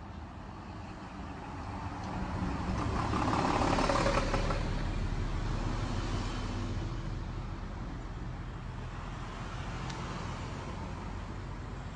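Road traffic passing close by: a city bus drives past, its engine and tyre noise swelling to a peak about four seconds in and fading. Cars follow, another one passing near the end.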